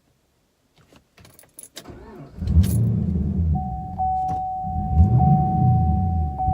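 Keys jingle, then the 2010 Camaro's LS3 V8 is cranked over by the starter with a pulsing low rumble but does not fire: a crank-no-start fault, which the owner fears is the fuel pump. A steady in-car warning chime tone joins about a second later, repeating about once a second.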